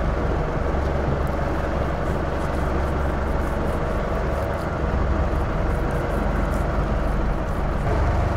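Boat's engine running steadily, a low even rumble.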